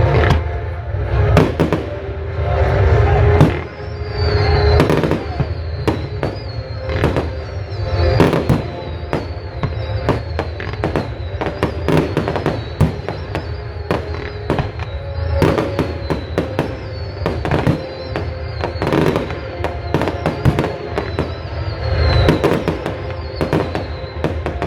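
Fireworks display: shells bursting in a steady run of sharp bangs and crackles, several a second, over music playing.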